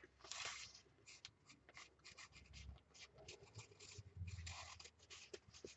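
Faint scratching of charcoal drawn across paper in many short, quick strokes.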